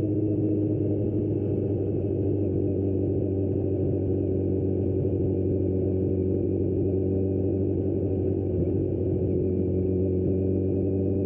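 Kawasaki Z900 SE's inline-four engine, fitted with an Austin Racing aftermarket exhaust, running steadily at an unchanging engine speed, with no revving.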